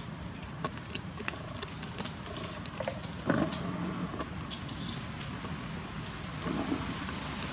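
Young monkeys making high-pitched squeaky calls, with a louder run of squeals about halfway through and another just after six seconds, among scattered small clicks.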